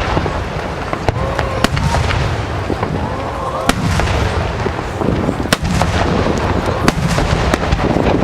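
Fireworks display: many sharp cracks and bangs from bursting shells, irregularly spaced, over a continuous low rumble of booms.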